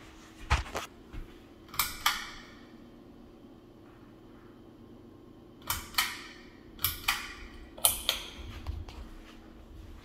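Pull-chain switches on a Harbor Breeze ceiling fan with a light kit clicking, each pull giving a pair of sharp clicks about a third of a second apart, five pulls in all, and one of them turns the light kit on. The fan motor hums faintly under the clicks.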